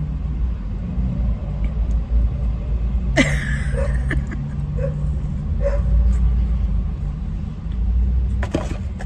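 Steady low rumble of a running vehicle or nearby traffic, with a sudden sharp noise about three seconds in and a few short faint yelps a little later.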